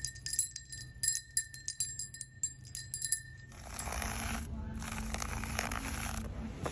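A rapid run of small clicks with a bright, bell-like ringing tone for about three and a half seconds, then a steady rustling, crunching hiss in two stretches separated by a brief pause.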